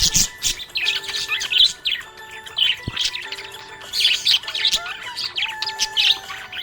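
Budgerigars chirping and chattering in quick, high bursts, one run of chirps after another.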